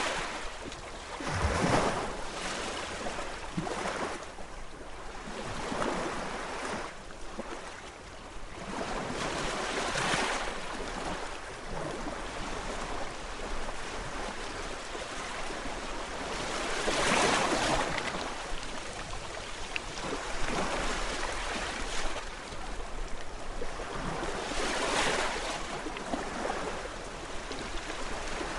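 Gentle sea waves breaking and washing ashore: a steady hiss of surf that swells into a louder wash every few seconds.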